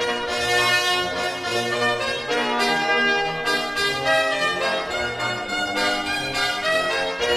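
Background music led by brass instruments, playing a bouncy melody over a repeating bass line.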